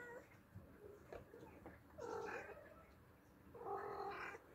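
Oriental cat meowing: two drawn-out meows, about two seconds in and about three and a half seconds in, with the tail of an earlier meow at the very start.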